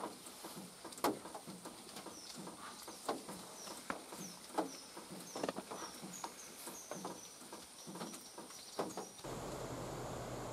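A bird calling in a run of short high chirps, about two a second and quickening, over scattered sharp clicks and crackles and a faint steady high tone. About nine seconds in it cuts abruptly to a steady hiss with a low hum.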